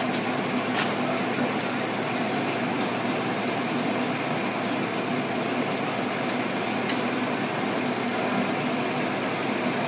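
Steady hum and rushing drone of fire engines running at the scene, with a couple of faint clicks.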